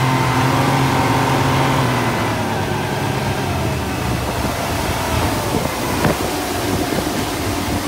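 Speedboat's outboard motors running steadily at speed, with the rush of water from the wake. The engine hum is clearest for the first two seconds, then blends into the water noise.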